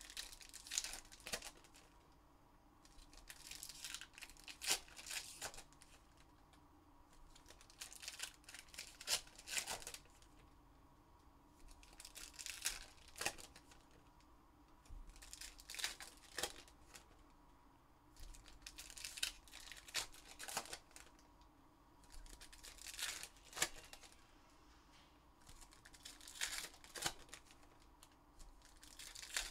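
Trading-card pack wrappers being torn open and crinkled one after another, a short burst of tearing about every three to four seconds.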